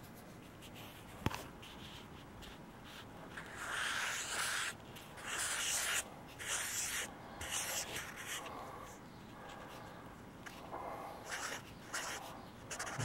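Felt-tip marker writing on a sheet of paper: a series of scratchy strokes of varying length, after one sharp click about a second in.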